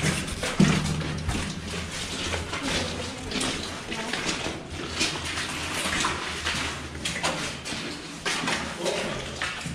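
Footsteps wading through shallow water, irregular splashing and sloshing with each step.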